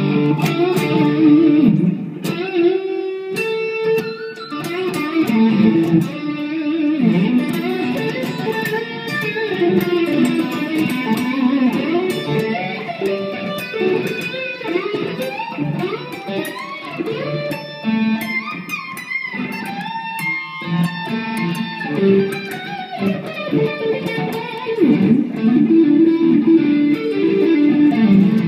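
Epiphone Les Paul Custom electric guitar with 50's wiring and a treble bleed circuit, played through an amplifier: a steady stream of single-note lines and chords.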